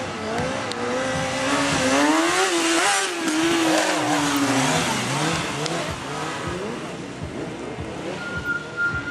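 Stunt sport motorcycle's engine revving hard as the rider holds the bike on one wheel. The pitch climbs and wavers to a peak two to three seconds in, then falls away to a lower, unsteady rev.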